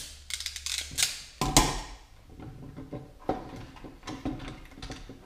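Hand-tool handling on a wooden workbench: clicks of a crimping tool on wire terminals, a knock about a second and a half in as it is set down, then lighter clicks of wires being handled.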